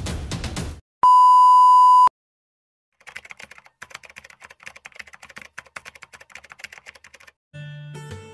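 Drum-led music cuts off, followed by a loud steady beep lasting about a second. After a short silence come rapid, faint keyboard-typing clicks, a sound effect for text being typed out, and near the end fingerstyle acoustic guitar music begins.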